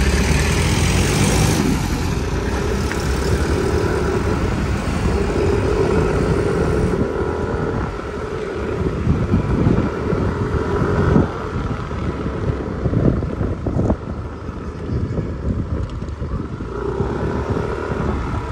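Motor scooter riding along at speed: wind rushing over the microphone over the steady drone of the scooter's engine.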